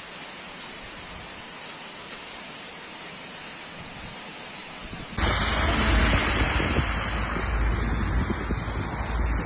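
Steady hiss of heavy storm rain. About five seconds in there is an abrupt cut to a louder, more muffled recording of the downpour with a deep rumble.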